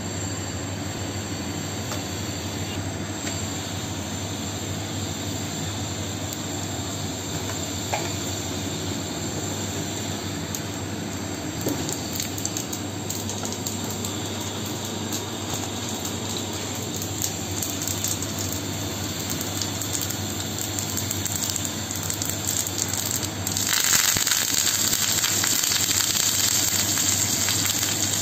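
Oil heating in a cast-iron pan with a steady hiss and light crackles from about halfway. A few seconds before the end a louder sizzle starts as curry leaves go into the hot oil.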